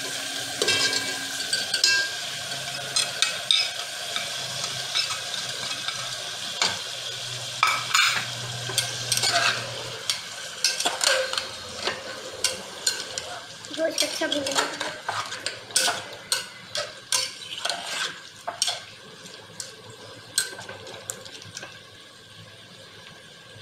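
Sliced onions sizzling in hot oil in a steel pot, stirred with a metal spoon that scrapes and knocks against the pot. Partway through, a metal spoon stirs meat pieces in an aluminium pressure cooker, with repeated scrapes and clinks while the sizzle dies down near the end.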